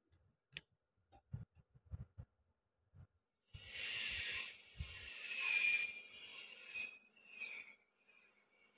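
A few light taps and knocks of handling, then from about three and a half seconds in a plastic package of dumpling wrappers rustling and crinkling as it is pulled open and handled.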